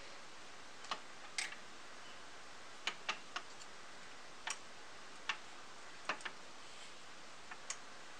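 Wooden spinning wheel clicking as its flyer and bobbin are handled by hand: about ten short, sharp clicks at uneven spacing.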